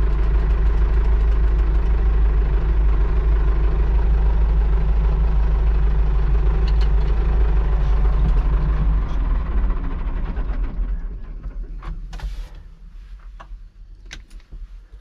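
Valmet tractor's engine running steadily, then shut off about nine seconds in and running down to a stop over a couple of seconds. A few sharp clicks and knocks follow near the end.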